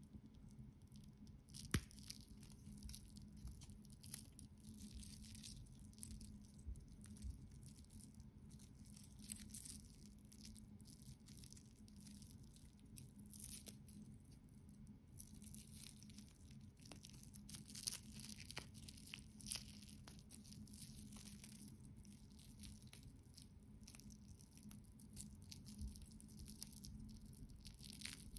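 Faint handling of a stainless steel mesh watch bracelet and its clear plastic protective film: light crinkling and scattered small clicks, the sharpest about two seconds in, over a low steady hum.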